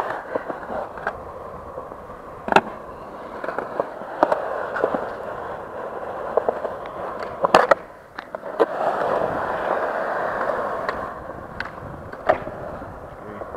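Skateboard wheels rolling over smooth concrete with a steady rumble, broken by several sharp clacks of the board hitting the ground, the loudest about seven and a half seconds in.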